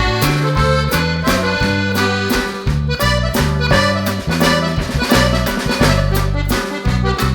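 Background music with held bass notes and a steady beat.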